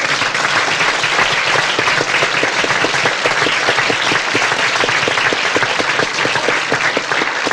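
Audience applauding, a dense, steady clapping of many hands, at the close of a poem reading.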